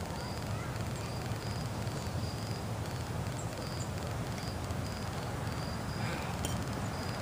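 Outdoor background of steady low noise, with an insect chirping a short high note about every two-thirds of a second and a faint click about six and a half seconds in.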